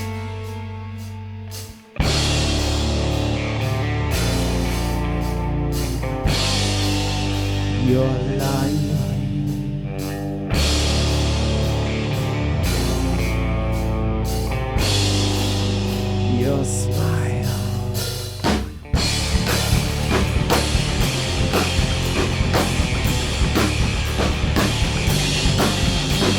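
Instrumental passage of a heavy rock song with a drum kit. There is a brief drop about two seconds in, and from near the end the drums play fast, even hits.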